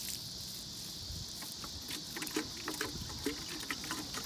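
Comfrey tea sprinkling from a watering can's rose onto dry straw mulch and fallen leaves: a spatter of small crackling ticks from the drops, thickening from about a second and a half in. Under it runs a steady high chorus of insects.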